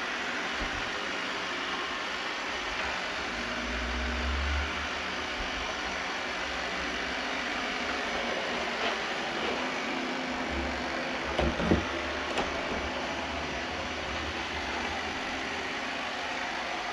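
Eufy LR30+ hybrid robot vacuum running with a steady, even whirring hiss. A few low bumps come through, and a short cluster of sharp knocks about twelve seconds in.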